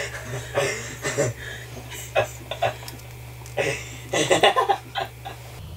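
Two people laughing in short irregular bursts, over a steady low hum.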